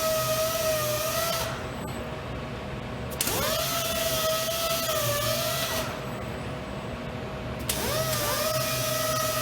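Robot-held sander running with a steady whine that cuts out about a second and a half in, then spins back up with a rising whine; it cuts out and spins up again in the same way later.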